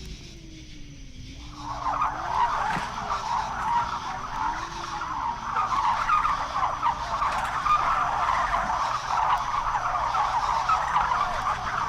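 Spooky sound effect from a 1970s sound-effects record: a thin, eerie wail that glides slowly up and down, joined about a second and a half in by a dense, continuous screeching noise that holds steady to the end.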